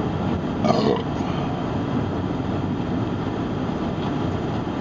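Steady road and engine noise inside a car's cabin at highway speed.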